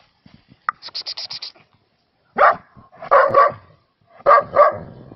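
A dog barking, five sharp barks over the last three seconds, some in quick pairs. Before them, about a second in, comes a quick run of about six short high clicks.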